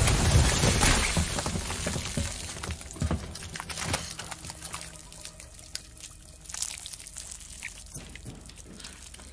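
Wet splatter of a body bursting into slime, loud at first and fading over the first couple of seconds, then scattered drips and small splats of goo falling from shelves and furniture.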